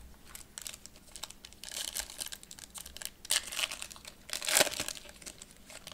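Foil wrapper of a 2021 Panini Prizm Draft Picks card pack being handled and torn open: a run of crinkling and crackling, loudest in bursts a little past the middle and again about four and a half seconds in.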